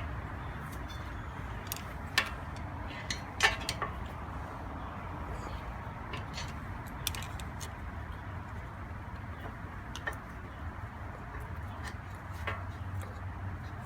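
A few sharp metallic clicks and clinks of brake pads and hand tools being handled on a disc brake caliper, over a steady background noise. The two loudest come about two and three and a half seconds in, with fainter ticks later.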